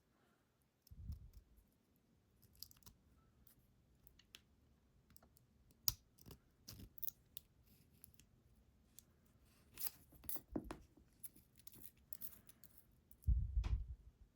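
Small metal lock parts being handled during reassembly of a pin-tumbler lock: scattered light clicks and ticks, with a dull bump about a second in and a louder one near the end.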